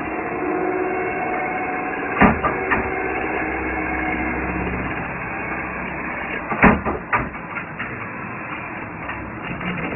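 CNC metal spinning machine running with a steady noise and faint held tones, broken by sharp knocks about two seconds in and again near seven seconds, followed by lighter scattered clicks.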